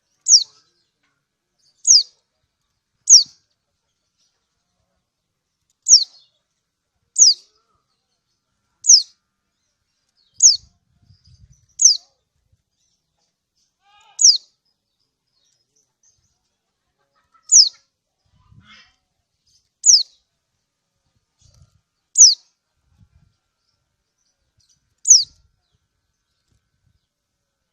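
Kecial kuning 'ciak' calls: single short, high chirps that fall quickly in pitch, repeated about thirteen times at uneven gaps of one to three seconds. This call is used as a lure to set other kecial kuning singing.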